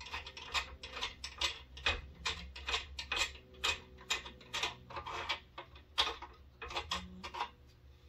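A run of light, sharp metallic clicks, about three a second and uneven in strength, from the aluminum side plates and frame of a robot torso being handled and shifted on a granite block.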